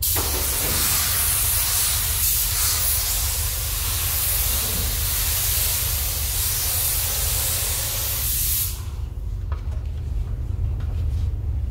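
Gravity-feed paint spray gun hissing steadily as it sprays the finishing coat of red paint, the spray cutting off about nine seconds in. A steady low hum runs underneath throughout.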